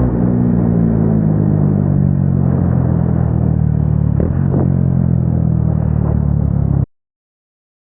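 Single-cylinder motorcycle engine with an aftermarket exhaust running at fairly steady revs on the move. It cuts off abruptly about seven seconds in, leaving silence.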